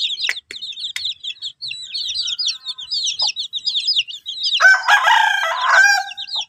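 A brood of kampung chicks peeping constantly in short, high, rapid calls. About four and a half seconds in, a rooster crows once for over a second, louder than the peeping.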